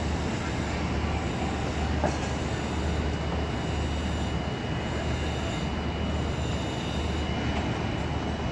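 Steady background noise: a continuous low hum under an even rushing noise, with a faint high whine held throughout and a small click about two seconds in.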